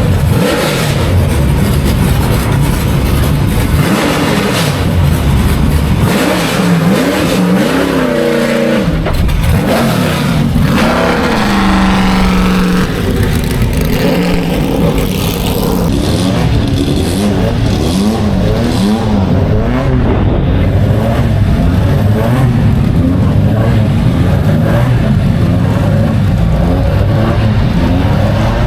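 Historic racing cars' engines at full song, revving up and down through the gears as they run past. About eight to thirteen seconds in, one loud engine note sweeps down in pitch as a car goes by, and engine sound continues steadily after it.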